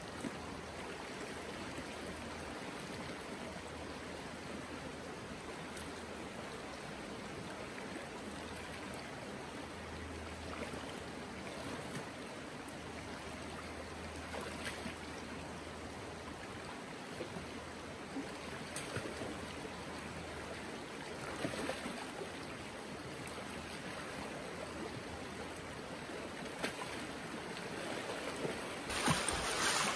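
Shallow river flowing over rocks: a steady rush of water, with a few faint splashes now and then. The water gets louder in the last second.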